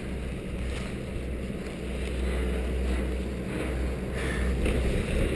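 Wind buffeting the microphone of a camera riding on a moving chairlift, a steady low rumble.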